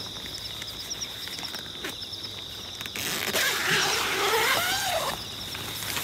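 Night insects trilling steadily, with a thin high whine and small repeated chirps. Halfway through, a louder hissing, rustling noise with a wavering pitch lasts about two seconds.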